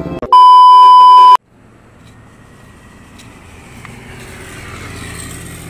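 A loud, steady beep tone about a second long, cutting off sharply, of the kind used to bleep out words. After it, a low rumble of outdoor vehicle noise that slowly grows louder.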